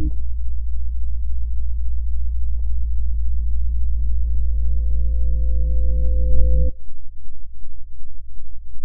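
Low electronic drone of steady sustained tones, cutting off sharply about seven seconds in and giving way to a lower, pulsing hum.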